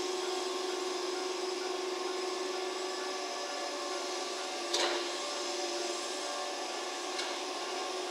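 KuMoYa 145 electric service cars moving off at walking pace: a steady electrical hum with a single sharp knock about five seconds in and a fainter click near the end.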